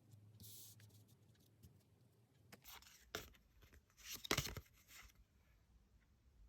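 Faint rustling and sliding of tarot cards being handled, in short bursts, the loudest about four seconds in.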